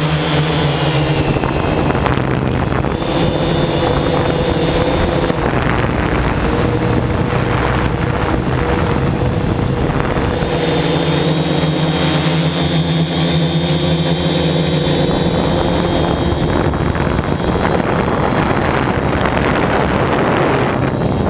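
Electric motors and propellers of a MikroKopter hexacopter running in flight, a steady drone of several held tones over a rushing hiss, the tones shifting in pitch a few times as the motor speeds change.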